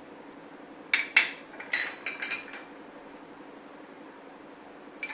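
Sharp clinks of kitchen utensils against a dish, several in a cluster about a second in and one more near the end, each with a brief ring.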